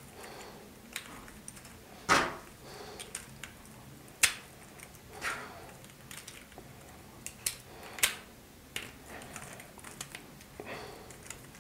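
3D-printed plastic gear and connector pieces clicking and knocking against each other as they are handled and pressed into place: irregular sharp clicks, with louder knocks about two, four and eight seconds in.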